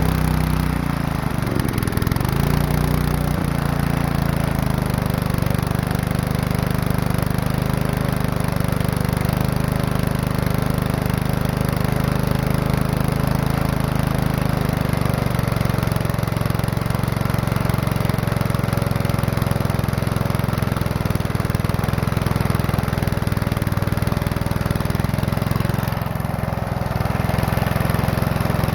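Small four-stroke engine with a suction-feed (draw-up) carburetor running steadily, its speed wavering briefly early on and changing slightly about halfway through. It runs only so-so, and the owner takes the carburetor for worn out.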